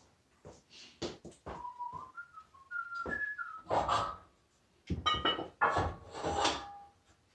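A man whistling a short tune of stepped notes while objects are set down on a wooden bench top, with several knocks and heavier clunks, the loudest about four seconds in and again near the end.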